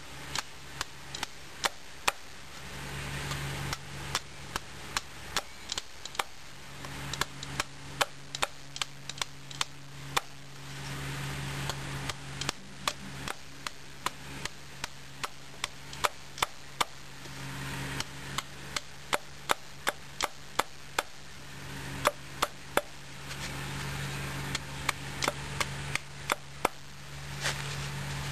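Fox ST3-F survival knife chopping into a wooden stake to sharpen it to a point. Sharp chopping strikes come about two a second in runs of several, with short pauses between the runs.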